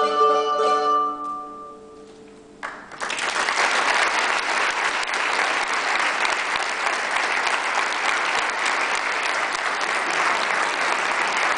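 A mandolin ensemble's last plucked chord rings and fades out over about two seconds at the close of the piece. Then audience applause starts about three seconds in and carries on steadily.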